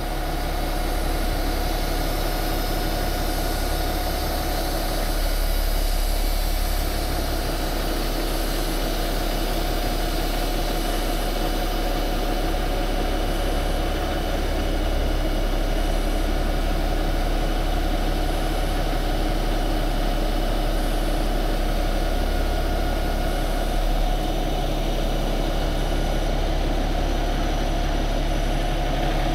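Heavy diesel truck engine idling steadily with a low rumble, while the stuck dump truck is winched slowly forward out of deep mud.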